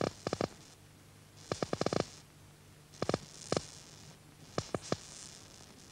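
Sharp crackling clicks accompanying pulsed electron-beam welding, coming in about five irregular bursts, some as quick runs of several clicks and some as single clicks, over a faint steady hum.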